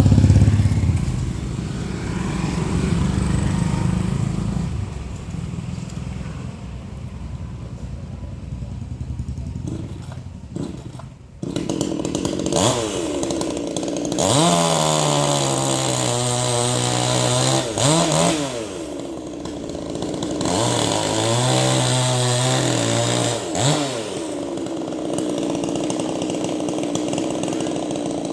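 Chainsaw engine running, revved up to full throttle twice for about three to four seconds each, dropping back to a lower idle between and after.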